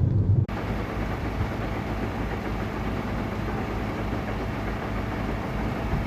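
Heavy diesel machinery running steadily, most likely the engine of a one-metre road planer (cold milling machine); a louder low rumble gives way to it abruptly about half a second in.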